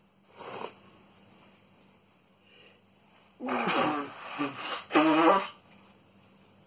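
A man's sneezing fit: a short sharp burst about half a second in, then two loud sneezes with a voiced cry, about three and a half and five seconds in.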